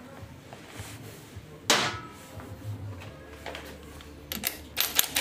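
Hand tools being handled on a metal workshop floor plate: a single metallic clank about two seconds in, then a quick run of sharp clicks near the end as a 19 mm socket is fitted onto a cordless impact wrench.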